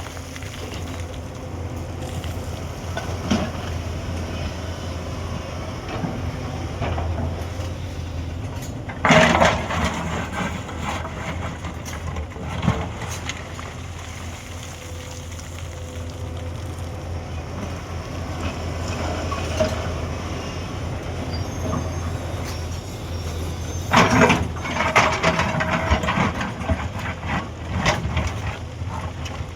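Hyundai 210 crawler excavator's diesel engine running steadily under load. Two louder spells of harsh noise break in, about nine seconds in and again from about 24 to 28 seconds.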